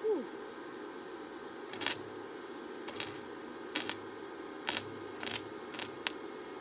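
Arc welder striking about seven short bursts of welding, tack welds on sword steel, over the steady hum of the welding machine. A brief falling squeak sounds at the very start.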